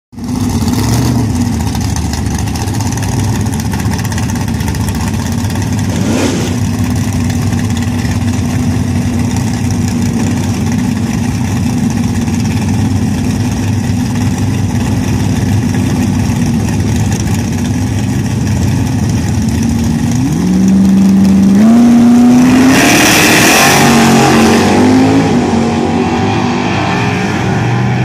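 Chevrolet Nova drag car's engine idling with a steady, lumpy note for most of the stretch. About two-thirds of the way in it launches at full throttle, the engine pitch climbing in steps through the gear changes as the car runs off down the strip, loudest just after the launch.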